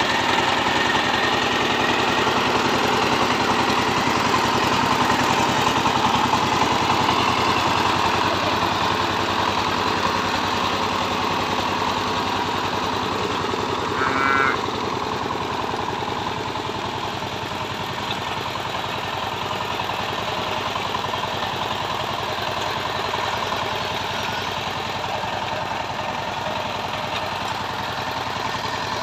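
A 14 hp power tiller's single-cylinder diesel engine running steadily with a rapid, even beat, easing a little quieter about halfway through.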